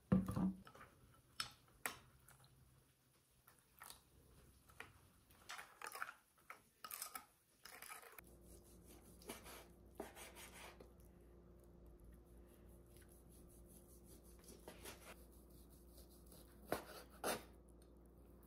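A plastic spoon clinking and tapping against a glass bowl of soy-sauce dressing, in scattered light clicks. After about eight seconds it gives way to a kitchen knife slicing cooked beef on a plastic cutting board, with soft cutting sounds over a faint steady hum and two sharper knife taps on the board near the end.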